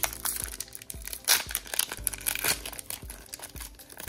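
Foil wrapper of a Pokémon trading card booster pack crinkling and tearing as it is opened by hand, in irregular crackles with a few louder ones, over faint background music.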